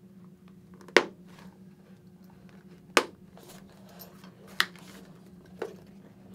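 Press snaps of a motorcycle helmet's cheek pad clicking shut one at a time: three sharp clicks a second or two apart, and a softer fourth near the end.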